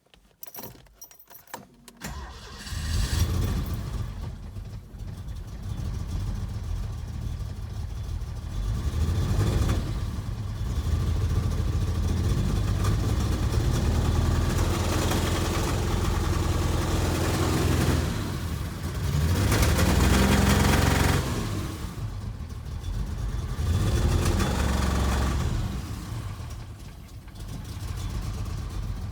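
A fuel-injected car engine with a misfire starts about two seconds in. It is then blipped repeatedly, each swell in loudness falling back, because the misfire keeps it from revving up.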